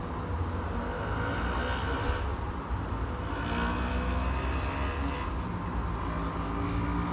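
A steady low rumble of outdoor background noise.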